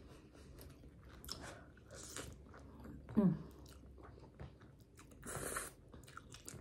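Close-miked chewing and smacking of chicken Alfredo ramen noodles, with soft wet mouth noises. A short hummed "Mm" comes about three seconds in, and a brief louder mouth noise about five seconds in.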